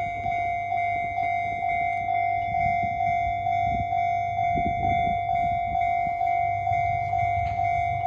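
Japanese level-crossing alarm ringing: an electronic bell sounding one steady ding again and again at an even, quick pace, over a low rumble.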